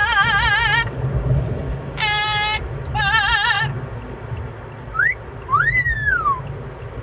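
Amazon parrot singing three held notes with a wide, even wobble in pitch, then two whistles about five seconds in, the second rising and falling. A steady low rumble from the moving car lies underneath.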